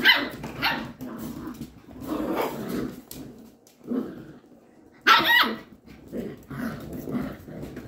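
Goldendoodle puppies barking and growling as they play-fight, in a string of short yaps. The loudest is a high-pitched yip about five seconds in.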